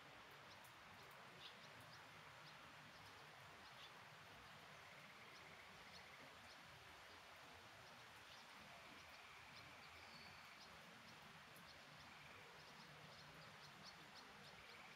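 Faint steady rain shower, an even hiss with scattered small drip ticks. A faint high trill comes and goes several times.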